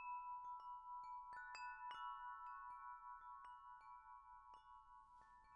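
Wind chime ringing: irregular strikes, several a second, each leaving clear tones that ring on and overlap. It is quiet.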